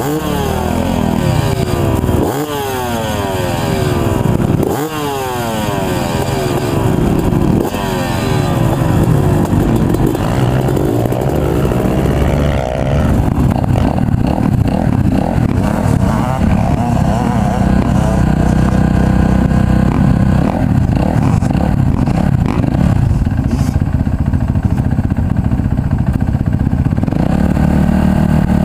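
Dirt bike engines: over the first several seconds a bike revs and rides past, its pitch rising and falling again and again, then one dirt bike runs steadily close by for the rest.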